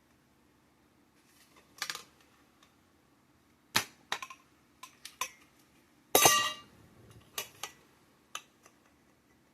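Irregular clicks and knocks of mini greenhouse frame poles and fittings being handled and pushed together. The loudest is a sharp knock about four seconds in and a longer clatter with a brief ring just after six seconds.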